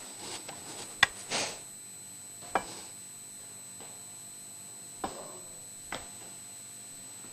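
A few light clicks and knocks of kitchen utensils against cookware as food is assembled, spaced out over several seconds, with a brief soft rustle just after the first one.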